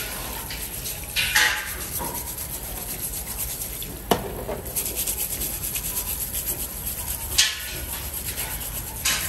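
A stiff brush scrubbing clam shells under running tap water: a fast, steady rasping rub over the hiss of the water. A few sharper knocks or scrapes come about 1.5, 4 and 7.5 seconds in.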